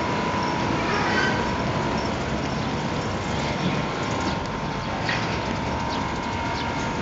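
Steady mechanical hum and noise with a constant thin whine, and a few short high chirps in the second half.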